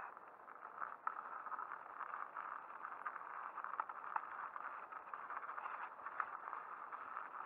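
Mountain bike rolling over a rough trail with patches of snow: steady tyre noise with frequent small rattles and knocks from the bike, picked up through a handlebar-mounted camera.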